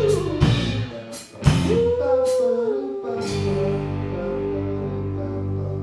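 A live rock band playing: sliding vocal notes over bass, electric guitar and drum hits, then about three seconds in the hits stop and the band holds a sustained chord.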